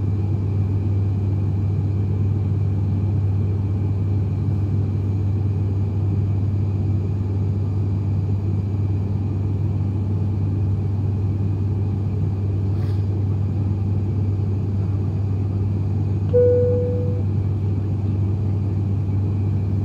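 Steady drone of the ATR 72-500's Pratt & Whitney PW127 turboprop engine and propeller heard inside the passenger cabin in flight, with a deep even hum. A short single-note chime sounds once about sixteen seconds in.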